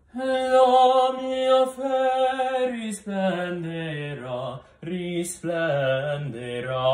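A young man singing an Italian aria in classical style, with vibrato: one long held note, then a phrase stepping down in pitch. He takes quick breaths about three seconds in and again past five seconds.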